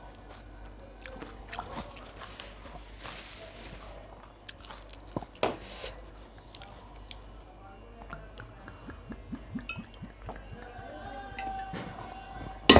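Close-up eating sounds: chewing and wet mouth noises, with scattered small clicks and a sharper click about five and a half seconds in.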